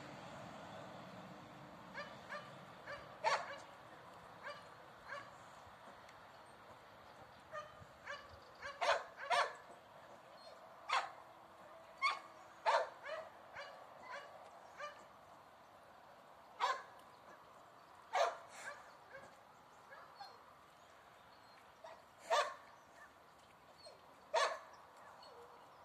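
A dog barking off and on: short, sharp barks every second or two, some louder than others.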